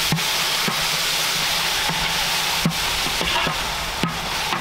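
Chopped onion and tomatoes frying in butter in a pan, a steady sizzle, while a ladle stirs them and knocks against the pan several times.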